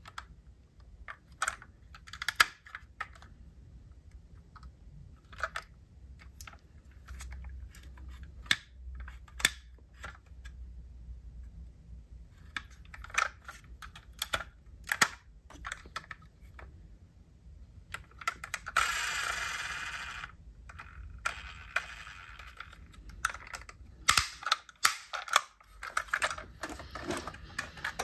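Irregular small clicks and taps of diecast metal model cars being handled, with two short stretches of a rushing noise about two-thirds of the way through.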